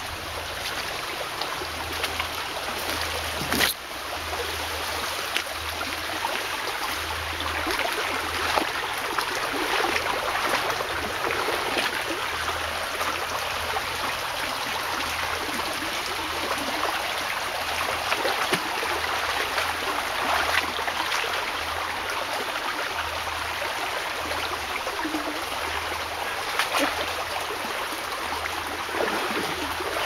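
Shallow stream flowing and trickling over rocks, a steady babbling. A sharp click about four seconds in, with a few fainter ones later.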